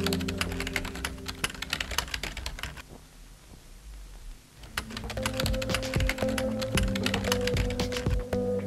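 Rapid key clicks of a keyboard typing sound effect over background music with held, droning tones. The clicks and music drop away for about two seconds midway, then the typing resumes.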